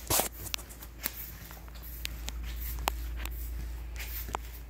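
Footsteps on a ceramic tile floor: irregular sharp taps and scuffs, the loudest just after the start, over a low steady hum.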